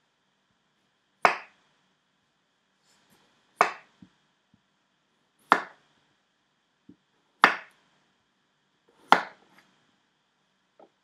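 Large kitchen knife chopping down through a raw potato onto a chopping board, squaring it off: five separate sharp chops about two seconds apart.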